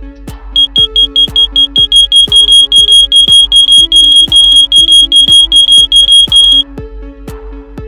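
Wireless smoke alarm sounding its loud, high-pitched electronic beep, over background electronic music. It starts about half a second in with a quick run of short beeps, settles into a steady train of beeps about three a second, and cuts off near the end.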